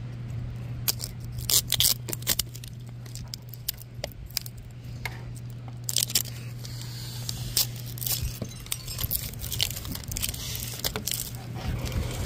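Plastic wrapper being peeled and torn off a plastic toy capsule ball: crinkling and crackling with sharp snaps, a few loud ones about two seconds in and again around six seconds, then denser crackling, over a steady low hum.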